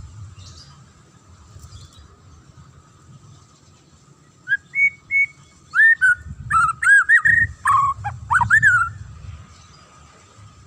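White-rumped shama (murai batu) singing a short phrase of loud, clear whistled notes that sweep up and down, starting about four seconds in and stopping about a second and a half before the end.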